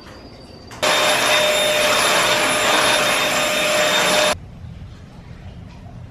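Handheld vacuum cleaner running on carpet: a loud motor hiss with a steady high whine. It starts suddenly about a second in and cuts off abruptly after about three and a half seconds.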